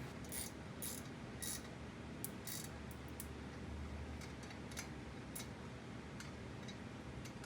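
Faint, scattered metallic clicks and ticks at an uneven pace, from hand tools and brake hardware being handled while the bolts are tightened.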